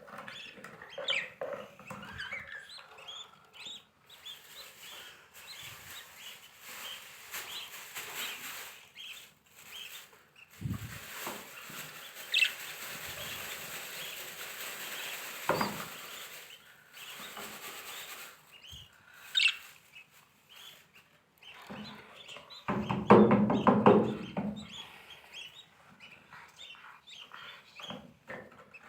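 Lovebirds chirping on and off. About two-thirds of the way through comes a loud burst of knocking and rustling, handling noise from working on the nest box.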